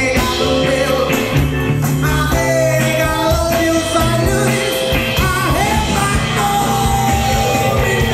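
Live band playing an MPB song, with drums, bass, guitar and keyboard under a held, bending melody line.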